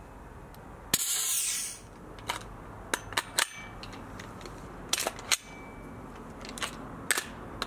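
Tokyo Marui MWS gas blowback airsoft rifle being worked by hand: a string of sharp mechanical clicks, with a short hiss about a second in. It is failing to fire, its green gas magazine too cold from the freezer.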